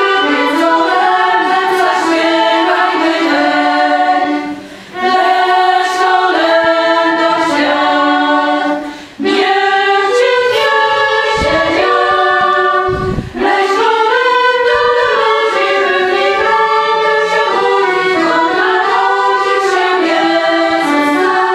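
Small, mostly women's choir singing a Christmas carol, with violin and accordion accompaniment, in phrases a few seconds long with short breath breaks between them.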